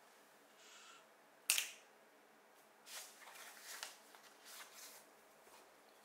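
A knife box being opened and a folding knife lifted out and handled: a sharp snap about a second and a half in, then a run of soft clicks and scrapes for a couple of seconds.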